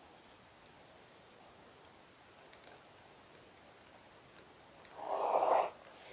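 Faint room tone with a few light pencil ticks on paper, then about five seconds in a short swish as the plastic set square is slid across the drawing sheet, followed by a second brief scrape.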